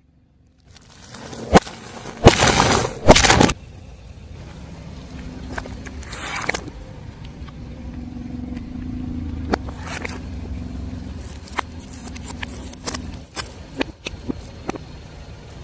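A car tyre rolling over objects and crushing them. A sharp crack comes about a second and a half in, then loud crunching bursts a second or so later, followed by the low rumble of the slowly moving car with scattered crackles and clicks.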